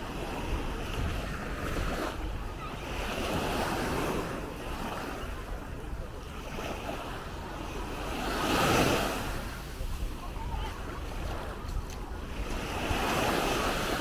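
Small Baltic Sea waves breaking and washing up on a sandy shore. The sound swells and fades every few seconds, with the loudest wash a little past the middle.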